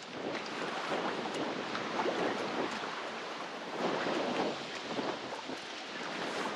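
Strong wind gusting across the microphone in uneven surges, with choppy water splashing around a small boat.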